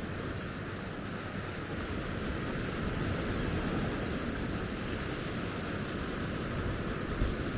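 Sea surf washing onto a beach: a steady rush of waves that swells a little midway, with wind buffeting the microphone and a brief low thump near the end.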